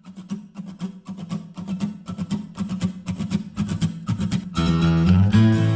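Intro music: an acoustic guitar strumming a rhythmic pattern, fading in. About four and a half seconds in, more instruments join with held low notes and the music grows fuller.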